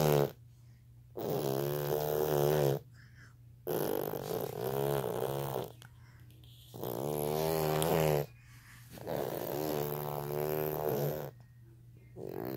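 A sleeper snoring: five long, pitched, puffing snores, one on each breath roughly every two and a half seconds, with short quiet gaps between.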